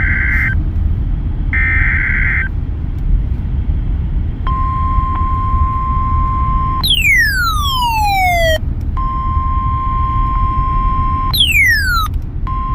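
Emergency Alert System tones from a weather radio broadcast: two short bursts of digital data noise, then a steady single tone of about 1 kHz in three stretches. The tone is broken twice by a whistling sweep that falls in pitch. A steady low rumble runs underneath.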